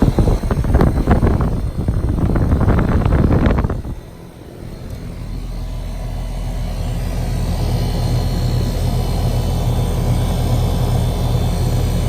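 2019 Goodman central air conditioner's outdoor unit running, compressor and condenser fan. For about the first four seconds there is a loud, uneven rush of air noise; after that it settles to a steady low hum.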